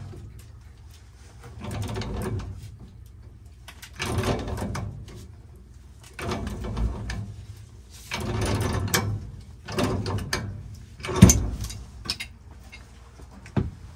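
A threaded steel pipe nipple being unscrewed from a fitting on steam return piping: metal threads grinding and scraping in repeated strokes, one about every couple of seconds. A sharp metal knock comes late, and it is the loudest sound.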